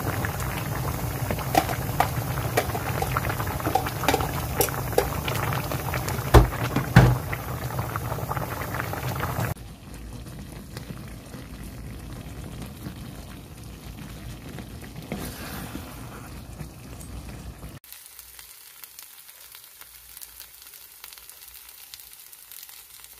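A pot of spicy red stew bubbling at a full boil, with frequent pops of bursting bubbles. About ten seconds in it gives way to a quieter simmer of thick curry, and near the end to a kimchi pancake sizzling in a frying pan.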